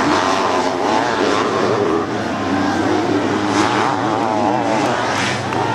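Several racing sidecar motocross outfits' engines, revving and wavering up and down in pitch as they race round the dirt track, over a steady engine drone.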